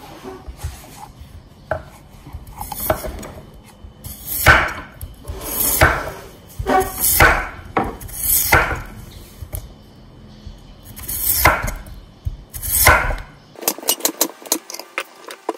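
Cleaver slicing a peeled potato into rounds on a wooden chopping board: a chop through the potato onto the board about every second or so, many of them doubled. Near the end there is a quick run of lighter clicks.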